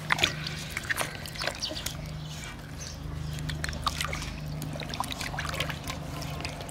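Water sloshing and trickling in a steel basin as hands rub and wash a whole tilapia, with many small wet splashes and clicks, over a steady low hum.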